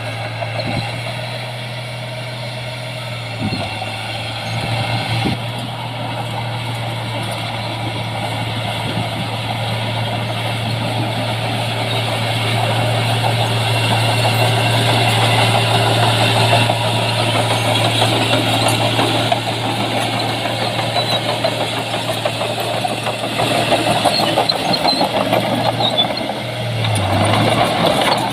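Heavy diesel engine of earthmoving machinery running steadily under load, a continuous low hum that grows louder about halfway through and dips briefly near the end.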